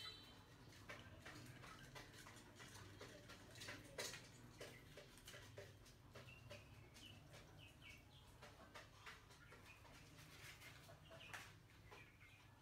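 Faint, irregular small clicks and scratching of mice clambering over a hanging cord-wrapped wire cage trap, with a few short high chirps in between.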